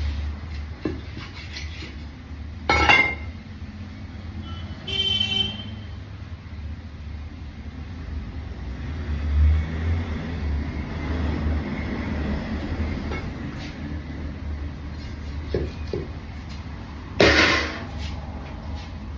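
Steady low traffic rumble with a vehicle horn sounding briefly about five seconds in. Over it come a few knocks, two of them loud, about three seconds in and near the end, from a cleaver chopping through a king mackerel on a wooden block.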